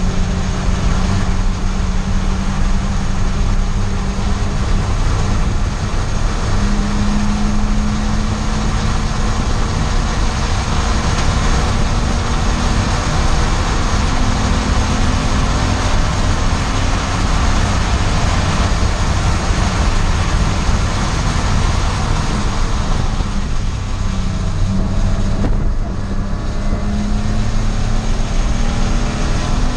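Race car engine under hard acceleration on a track, heard from inside the car, its note climbing with revs and stepping back at each gearshift. The level dips briefly about three quarters of the way through, then climbs again.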